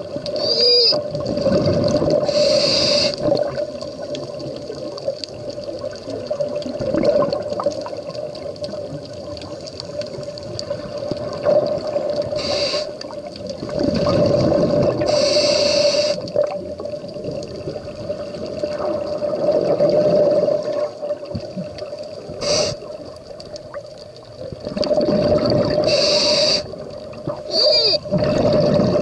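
Scuba regulator breathing underwater: a hiss on each inhale, followed by the rumbling gurgle of exhaled bubbles, repeating over several breaths, with a steady hum underneath.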